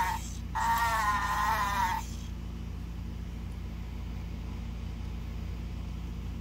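Jabberwacky fake-Furby toy talking in a warbling, tinny electronic voice through its small speaker, two short phrases that stop about two seconds in. Under it and after it runs the steady low hum of an air conditioner.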